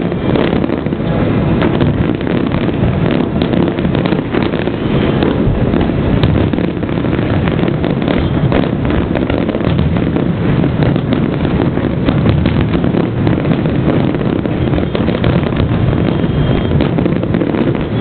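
Fireworks going off in a dense, continuous barrage, many bangs and crackles running together into a steady loud din.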